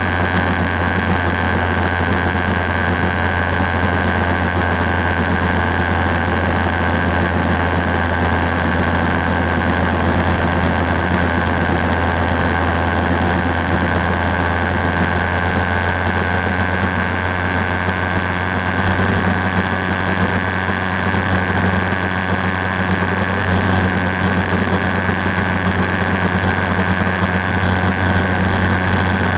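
Motorcycle engine running at a steady cruise, with wind and road noise on the move. It holds a low, even drone with no revving or gear changes.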